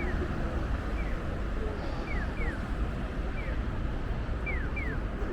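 Outdoor city ambience: a steady low rumble, with a series of short, high chirps, each falling in pitch, coming every half second to a second.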